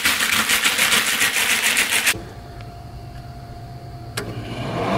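Zip-top plastic bag with tuna steaks and seasoning being shaken hard: a loud, rapid, continuous crinkling rustle for about two seconds. It then cuts to a quiet low hum, with one sharp click near the end as the Traeger pellet grill's temperature dial is turned.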